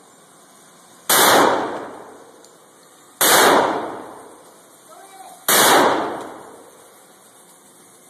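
Three shots from a Heckler & Koch HK45 .45 ACP pistol, roughly two seconds apart, each a sharp bang that rings on and fades over about a second in an indoor range.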